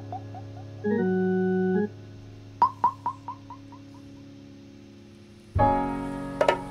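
Sparse experimental music on keyboard synthesizer. A held chord sounds for about a second, then a quick run of short falling notes fades away like an echo. Near the end a loud low chord enters, with a few sharp clicks.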